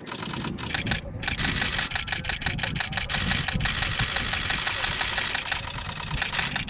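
Several camera shutters firing in rapid continuous bursts, many clicks a second, with short breaks near the start and about a second in. A vehicle engine idles low beneath them.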